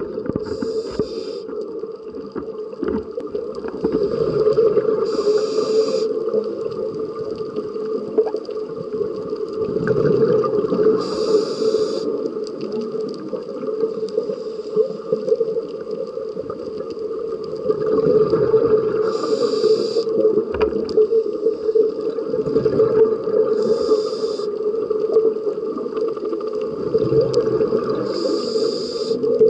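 Scuba diver breathing through a regulator underwater: six short hisses of inhaled air several seconds apart, over a continuous low bubbling rumble.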